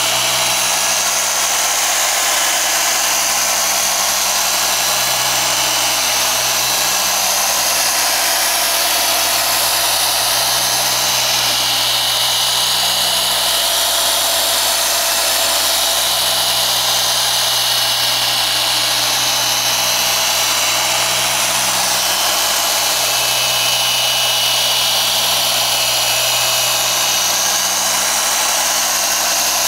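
SPTA 500 W dual-action (15 mm random-orbit) car polisher running steadily with a yellow foam cutting pad and compound on a painted door panel, during paint correction to remove swirl marks. Its motor sound goes on without a break, and its low hum swells and fades slightly.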